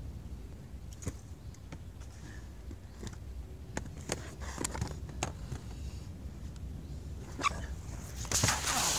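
Inline skate wheels rolling fast on the concrete of a skate bowl as a skater drops in, a loud rushing roll near the end, after a stretch of low steady rumble with a few scattered clicks.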